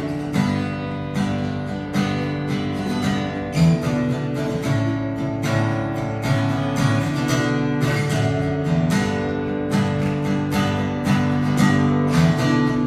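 Acoustic guitar strummed in a steady rhythm of chords: the instrumental intro of a live worship song.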